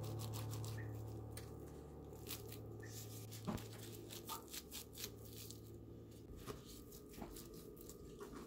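A cling-film-wrapped knife cutting through soft glutinous rice cake, with light clicks and plastic crinkling as the blade presses down onto a plastic cutting board; the sharpest click comes about three and a half seconds in. A low held piano note from the background music fades out about six seconds in.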